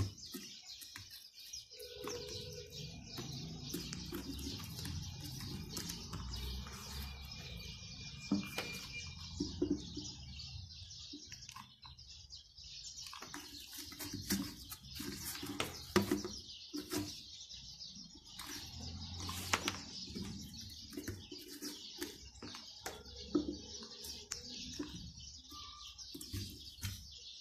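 Soft knocks, taps and rustles of a glitter foam sheet being pressed and glued onto a round chocolate tin with a hot glue gun, over a constant high chirping in the background.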